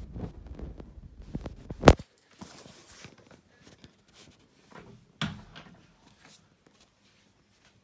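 Clattering handling noise ending in a sharp knock about two seconds in, then a softer knock about five seconds in.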